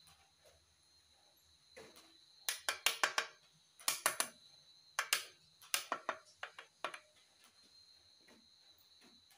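Metal clinks and taps of a main bearing shell being handled and seated in the centre saddle of an air-cooled Volkswagen engine case half. A run of sharp clicks, some briefly ringing, starts about two seconds in and stops near seven seconds.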